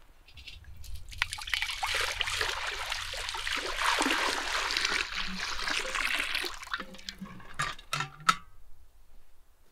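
Water poured from an aluminium milk can into a large metal cauldron, a steady splashing pour lasting about six seconds. A few short knocks follow near the end.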